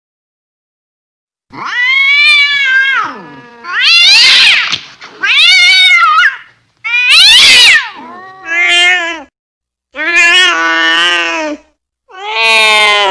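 Angry cat yowling (caterwauling): about seven loud, drawn-out wailing calls, each rising and falling in pitch, starting after a second and a half of silence. The last call is held on past the end.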